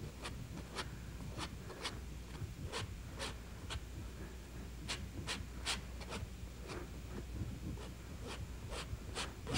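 Quiet, quick strokes of a painting tool dragging across a wet oil-painted canvas as tree reflections are worked into the water, coming in short runs of about two strokes a second.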